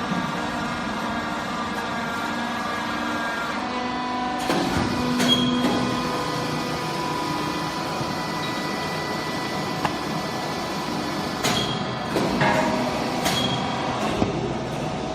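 Small garbage baler's motor running with a steady hum, its pitch shifting about four and a half seconds in as it works, with knocks around five seconds in and again a few times near the end.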